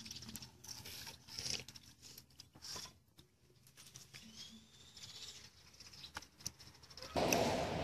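Grubs being rinsed by hand in a steel bowl: scattered small splashes and clicks of water and grubs against the metal. About seven seconds in, a sudden louder rush of water being poured out of a plastic bucket begins.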